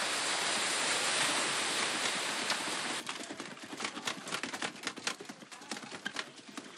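Atlantic bluefin tuna thrashing in a trap net: a dense rush of splashing water that cuts off about three seconds in, then many irregular sharp slaps and knocks of fish bodies and tails against the water and each other.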